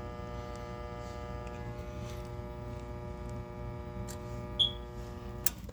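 Goodman gas furnace's draft inducer motor humming steadily while powered but not turning: the motor is seized (locked rotor). The hum cuts off with a click about five and a half seconds in.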